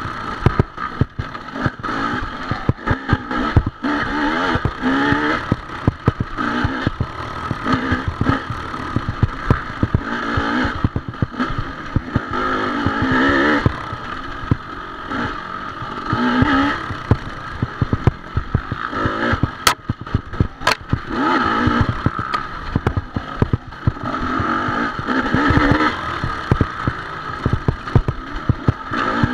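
Off-road dirt bike engine revving up and down over and over as it is ridden along a rough trail, with frequent knocks and rattles. Two sharp clicks come about two-thirds of the way through.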